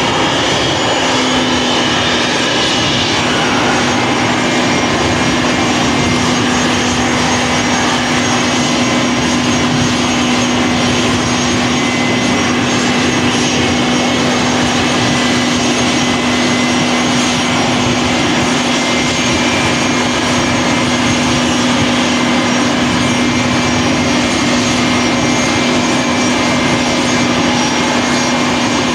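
Embraer Praetor 600 business jet's twin Honeywell HTF7500E turbofans running steadily at idle on the ground. It is a constant, even engine noise with a steady low hum held throughout.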